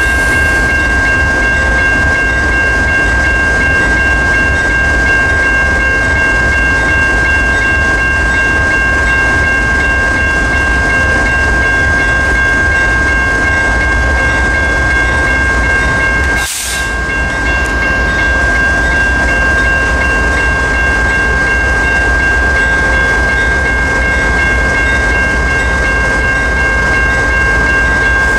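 A crossing's electronic bell ringing steadily, its tone unbroken, over the low rumble of a CSX GE ES44AH diesel locomotive standing in the crossing. A short burst of hiss comes about sixteen seconds in.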